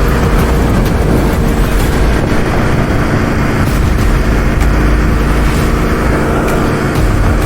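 Motorcycle engine running at a steady speed with heavy wind rush while riding.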